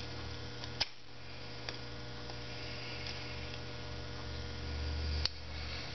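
Steady electrical hum with a light click about a second in and another near the end.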